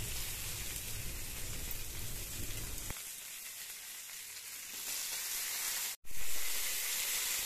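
Boiled chickpeas and diced potato frying in oil in a kadai: a steady sizzle. It thins out about three seconds in, cuts off for an instant about six seconds in, and comes back louder.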